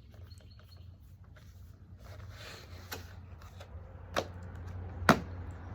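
Quiet handling noises while items are taken from a package: soft rustling and three sharp taps or clicks in the second half, over a steady low hum.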